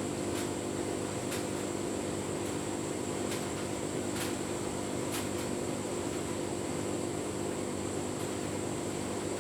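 Tumble dryer running with a full load of bedding: a steady hum of the motor and fan with the drum turning, and faint ticks about once a second.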